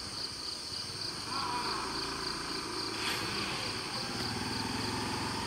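Steady, high-pitched chorus of insects such as crickets or cicadas, shrilling in a rapid pulse, over a low background rumble.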